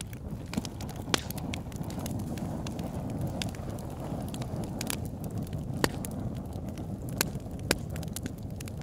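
Small open fire of dry sticks and corn husks crackling, with scattered sharp pops, the loudest about a second in and a few near the end, over a steady low rush.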